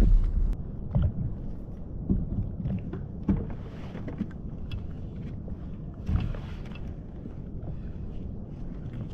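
Water washing against a sea kayak's hull, with scattered small knocks and clicks and a couple of brief hissing swells of water.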